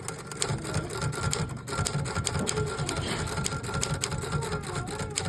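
Vintage manual typewriter being typed on fast: a rapid, uneven clatter of key strikes.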